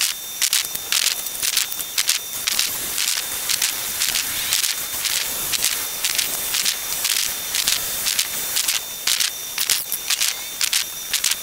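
Quick, uneven rasping strokes of a hand tool on a steel piece clamped in a bench vise, about two or three strokes a second.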